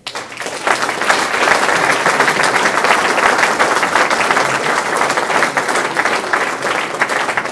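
Audience applauding: dense, steady clapping from a crowd that starts at once.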